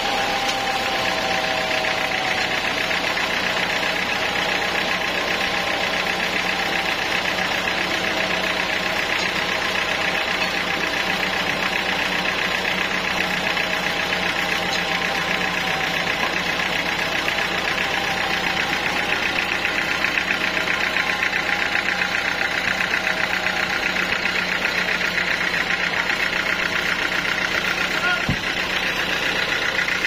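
Band sawmill's engine running steadily with a fast, even pulse, the saw idling between cuts rather than in the wood.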